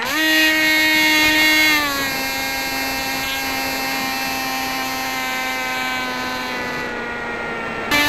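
The AXN Floater RC plane's electric motor and propeller whine, heard from the onboard camera. The motor spools up quickly at launch and holds a high pitch. Just before two seconds in it drops a step to a lower, slowly sagging cruise pitch, then jumps back up near the end. The propeller is badly out of balance, which the uploader says shakes the camera at full throttle.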